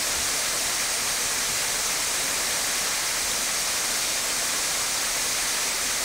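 Small waterfall running: a steady, even rush of falling water.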